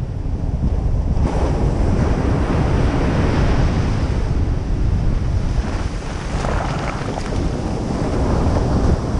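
Ocean surf breaking and washing up a sandy beach, with strong wind buffeting the microphone. The hiss of the surf swells about a second in.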